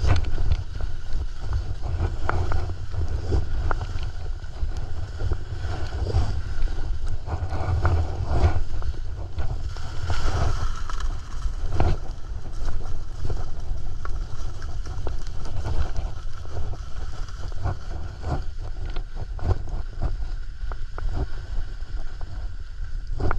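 Wind rushing over a GoPro's microphone during a ski descent, a steady low rumble, with irregular scrapes of skis on snow through the turns.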